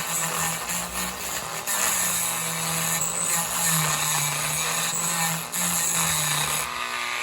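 Small power tool running on wood, its motor tone dipping and recovering as it works. It stops near the end.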